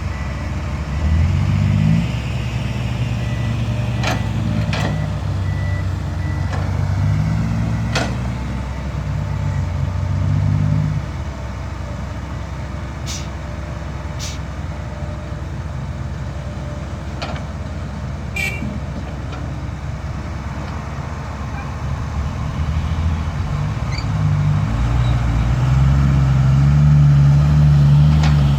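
Dump truck's diesel engine running under load, its pitch rising and falling as it pulls, easing to a steadier, lower note in the middle and picking up again near the end. A few sharp clicks or knocks come through at scattered moments.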